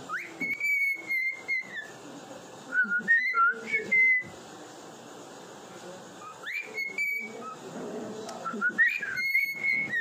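Cockatiel whistling a song: phrases of clear high whistles with quick upward swoops into held notes, in four bursts separated by short pauses.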